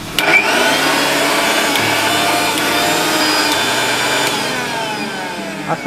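Sahara Pride mixer grinder's 750-watt motor switched on at the knob and run with no jar fitted: a steady high whine that, about four seconds in, falls in pitch as the motor is switched off and winds down.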